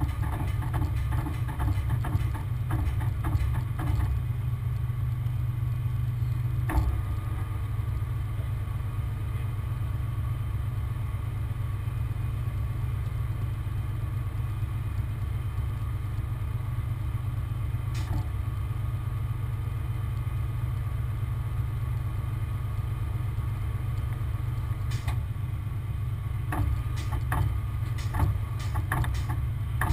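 Heavy wrecker's diesel engine running steadily with a deep, even drone, with scattered sharp clicks and clanks in the first few seconds and again in a cluster near the end.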